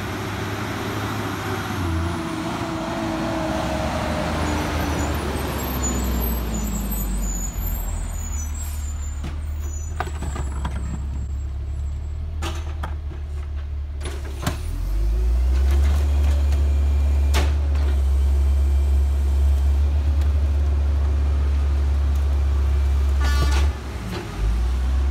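Rear-loader garbage truck's diesel engine: its pitch falls over the first several seconds as the truck slows to a stop, then it idles low. About halfway through the engine speeds up and runs loud and steady while the hydraulic cart tipper and packer work, with a few sharp knocks of plastic carts against the hopper.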